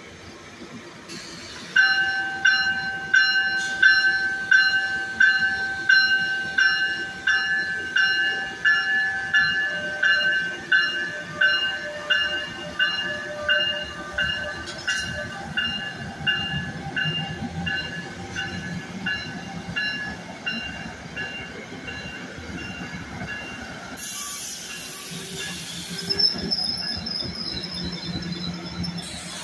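Electric train's locomotive bell ringing at about two strikes a second, starting about two seconds in and slowly fading as the train pulls away, over the low rumble of the passing cars. Near the end there is a short burst of hiss, then a high squeal.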